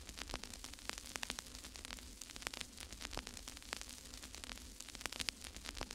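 Faint crackling static: irregular sharp clicks and pops, several a second, over a steady low hum.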